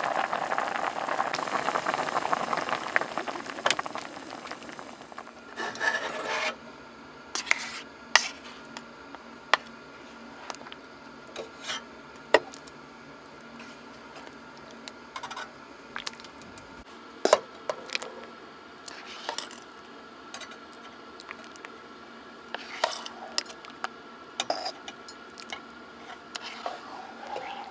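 Camp cooking sounds: a dense steady hiss for the first five seconds or so, then scattered light clinks and taps of utensils and metal cookware being handled.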